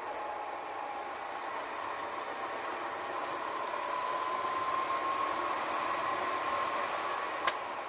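Go-kart running at speed, heard from the driver's seat: a steady whine that slowly rises in pitch as the kart accelerates down the straight, over a haze of wind noise. A single sharp click near the end.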